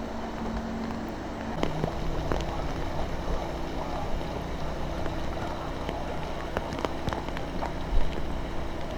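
Steady rush of rain and floodwater, with a low engine hum under it and scattered sharp ticks of drops; one louder knock about eight seconds in.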